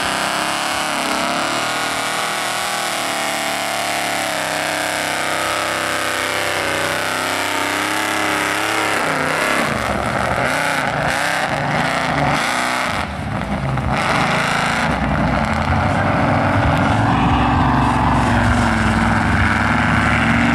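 Mud truck's engine revving hard, its pitch rising and falling, as the truck works its tractor tires through deep mud. There is a brief dip about two-thirds of the way in, then a heavier low rumble.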